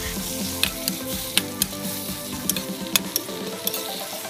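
Shrimp frying in garlic butter over high heat in a stainless steel wok, sizzling steadily, while a metal ladle stirs them and clicks against the pan again and again.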